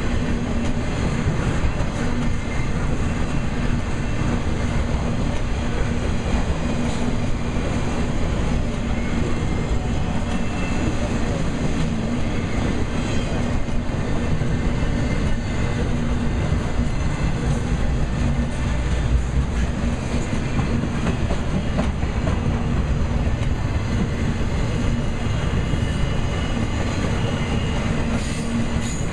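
Intermodal freight train's trailer-carrying flatcars rolling past: a steady rumble of steel wheels on the rails that keeps an even level throughout.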